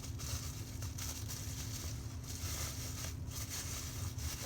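Faint handling noises, a few light rustles and small knocks, over a steady low background hum.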